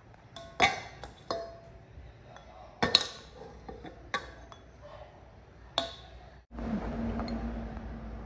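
Ceramic bowls and dishes clinking against each other and the tabletop as rice is scooped from a rice cooker pot, about six sharp clinks. About six and a half seconds in, the sound cuts off and a steady low hum takes over.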